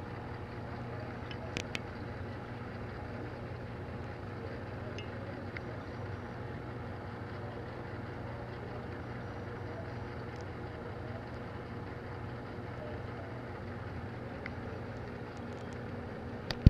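Steady low hum of running aquarium equipment, with sharp clicks: two about a second and a half in and one near the end.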